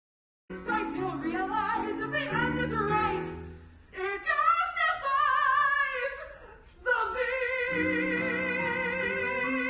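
A woman singing solo in a trained, opera-like style with strong vibrato, starting after a brief moment of silence. From about seven seconds in she holds one long note.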